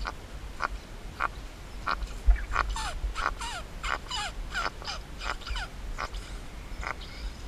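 Puffer fish held in the hand, croaking and squeaking as it lets the air out and deflates: a run of short clicks, then a quick series of short falling squeaks, about three a second, through the middle.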